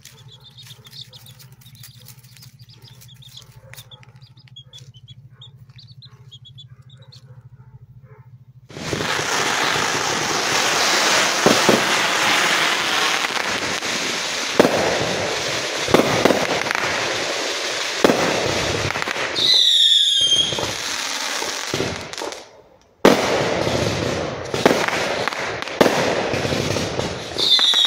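Faint chick peeps over a low steady hum, then, from about nine seconds in, fireworks crackling and popping loudly. About twenty seconds in, a whistling firework shrieks and falls in pitch, and the crackling briefly drops out a couple of seconds later.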